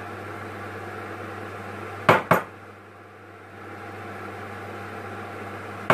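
Two quick knocks against a frying pan about two seconds in, a quarter-second apart, and another pair at the very end, over a steady hiss from the stove.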